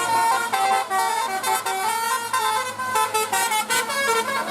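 Basuri 'telolet' musical bus horn playing a quick tune of short notes that step up and down in pitch.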